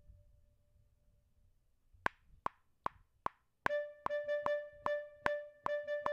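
GarageBand's metronome counts in with four clicks. About a second and a half later, a software clarinet starts playing a single note over and over in a repeating rhythmic pattern, while the metronome keeps clicking at 150 beats a minute.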